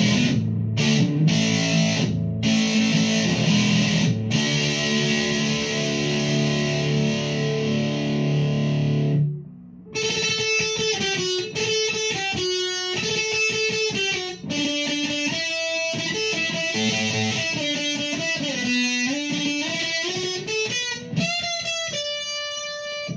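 Fender Player Telecaster on its Seymour Duncan bridge pickup, played through a Behringer SF300 Super Fuzz into a VOX AC10 amp. Fuzzed chords ring out for about nine seconds and break off briefly. A single-note lead line with bent notes follows.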